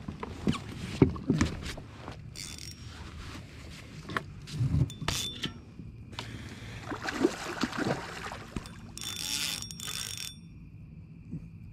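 Clicks, knocks and rustles of rod, reel and kayak hull being handled while a hooked fish is fought, with a few short hissy bursts in between.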